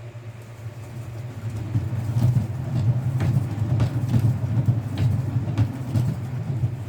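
Kitten purring close to the microphone: a steady low rumble that swells and eases about every half second, with a few faint clicks.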